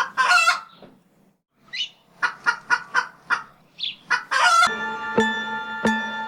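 Chicken calls: a run of short clucks, about four a second, with a couple of longer calls before and after. Gentle music with sustained notes starts about four and a half seconds in.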